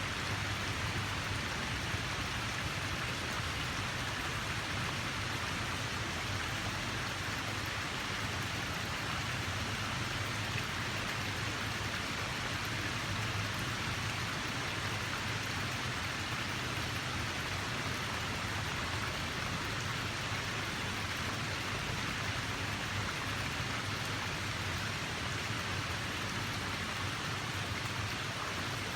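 Water rushing steadily, an even hiss with a low rumble underneath and no breaks or swells.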